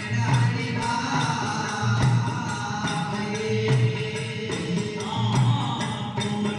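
Devotional bhajan music: a steady drum beat about every 0.8 seconds with jingling hand percussion under a sustained melody line.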